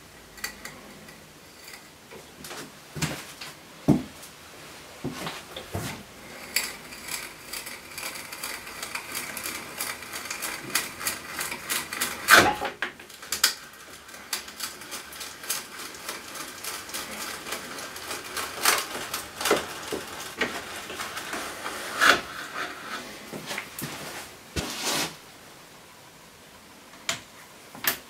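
Hand brace turning an auger bit to bore through a wooden lathe part: a long run of rapid, irregular clicks and creaks as the bit cuts and lifts shavings, with a few louder knocks. The clicking eases off near the end.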